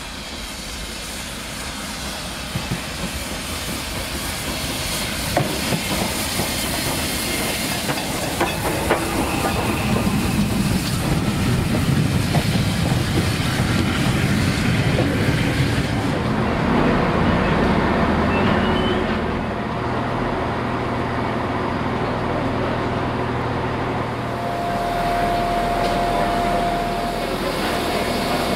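LNER B1 4-6-0 steam locomotive No. 61264 running in with its train: the rumble grows as the engine nears and the coaches roll past, wheels clicking over rail joints. About halfway through the sound changes abruptly to the locomotive standing, hissing steam.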